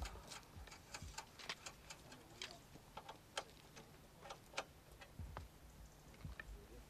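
Faint, irregular clicks and taps, a few a second, with a few low thumps about five seconds in.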